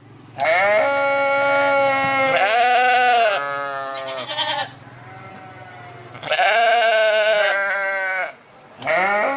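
Sheep bleating: three long, wavering calls, the first about half a second in, the second about six seconds in, the third starting near the end.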